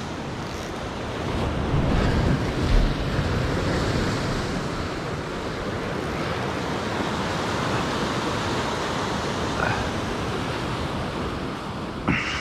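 Ocean surf washing and breaking against a lava-rock shoreline, a steady rush that swells louder about two seconds in, with wind buffeting the microphone.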